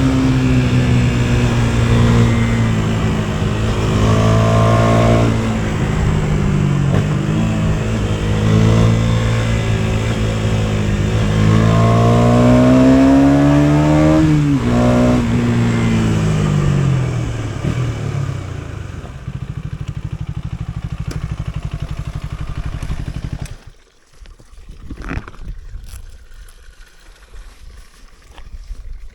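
KTM Duke 250's single-cylinder four-stroke engine under way, its pitch rising and dropping twice as it pulls and shifts, then falling away to a steady idle. Near the end the engine cuts off suddenly, leaving a few faint knocks and clatter.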